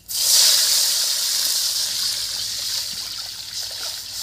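Water poured into a kadai of hot mustard oil tempering with dry chillies and spices: a loud sizzling hiss that bursts up at once and slowly fades.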